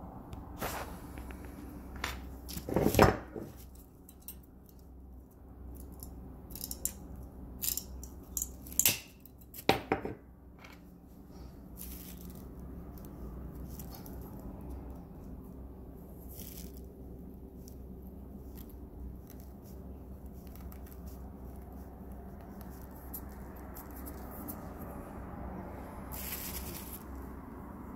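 Scattered sharp clicks and knocks of small hard objects, the loudest about three seconds in and a cluster between about seven and ten seconds, over a low steady hum of room tone.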